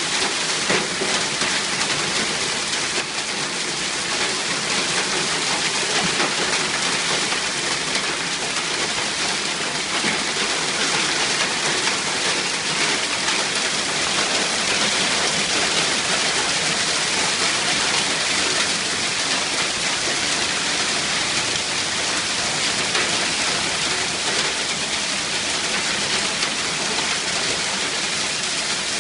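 Hailstorm: hail and rain coming down hard and steadily, a dense patter of countless small hits.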